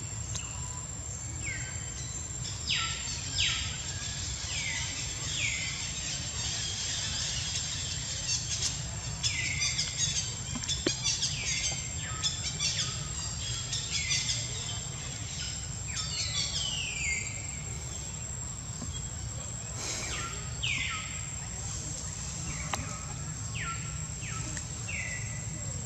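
Birds calling: short whistles that each fall in pitch, repeated in irregular runs, over a steady high-pitched insect drone and a low outdoor hum.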